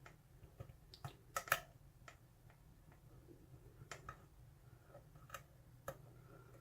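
A lock pick working the pins of a pin-tumbler lock held under tension, giving small irregular metallic clicks and taps as the pins are lifted and set. The loudest two clicks come close together about a second and a half in.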